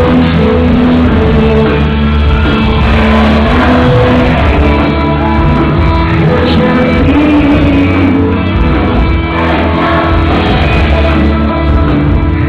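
Live band playing loud music with a singer, heard from within the audience.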